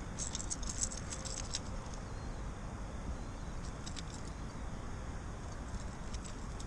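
Light metallic clicking and rattling of a bladed fishing lure's blade and hooks as weeds are stripped off it by hand. It comes in a few short clusters, densest in the first second and a half and again around four seconds in, over a steady low background noise.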